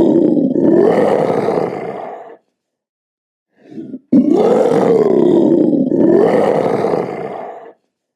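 A leopard roaring, a long, wavering growl. One roar fades out about two seconds in, and after a silent gap a short, quieter sound leads into an identical roar about four seconds in, lasting some three and a half seconds.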